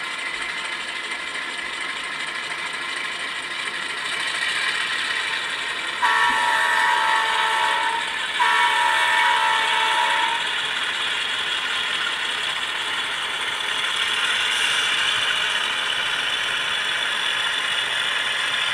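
LokSound decoder in a LifeLike E8 model locomotive playing a dual EMD 567 diesel sound file through the model's speaker, the engines revving up as the throttle is opened. About six seconds in, the M5 air horn sounds two long blasts, the signal to proceed forward.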